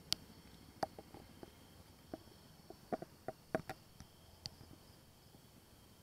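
A string of sharp, irregular clicks and knocks, about a dozen in the first four and a half seconds, the first and loudest just after the start, over a faint steady high-pitched tone.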